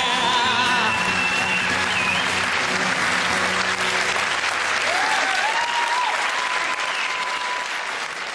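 Live audience applauding and cheering at the end of a song, with a few whistles. The last guitar chord rings out under the applause for the first few seconds, and the applause begins to die down near the end.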